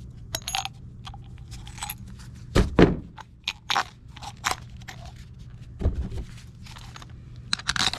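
Handling noise from gloved hands fitting a bolt and washers through a Timbren rubber bump stop and spacer: scattered small clicks and scrapes of metal against rubber and plastic, with a heavier thump a little before three seconds in and another near six seconds.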